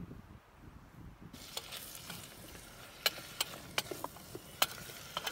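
Onions and garlic sizzling as they fry in a small metal pot over a campfire while being stirred with a wooden spoon, starting about a second in. Several sharp clicks cut through the sizzle.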